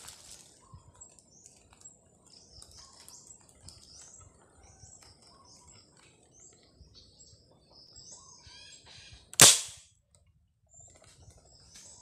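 Small birds chirping in the canopy, then one sharp shot from a marble gun about nine and a half seconds in.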